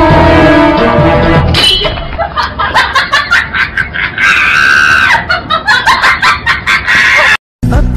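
A music track for the first second and a half, then people screaming in a rapid string of short shrieks, with one long held scream in the middle. The sound cuts out abruptly just before the end.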